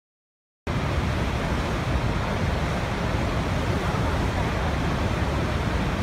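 Waterfall roaring as a steady rush of falling water, cutting in abruptly about half a second in after silence.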